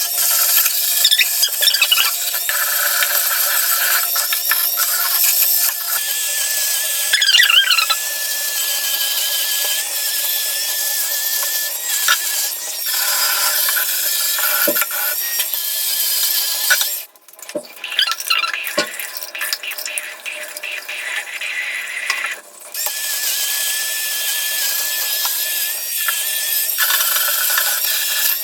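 Oraimo cordless spin scrubber running, its brush head scrubbing a sink with a steady high whine. It goes much quieter for several seconds past the middle, then runs again.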